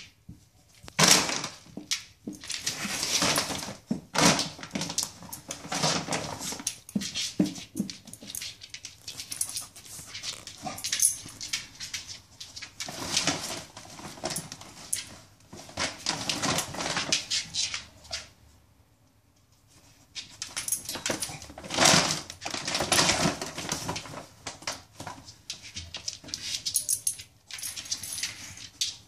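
Large plastic dog food bag crinkling and rustling in irregular bursts as a dog noses and paws into it, with a short quiet gap about two-thirds of the way through.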